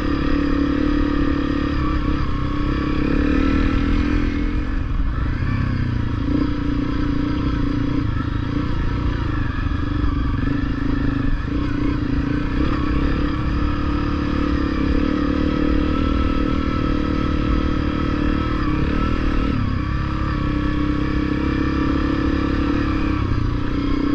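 Honda CRF250L's single-cylinder four-stroke engine running steadily as the bike is ridden, its pitch dipping and rising with the throttle about five seconds in and again near twenty seconds.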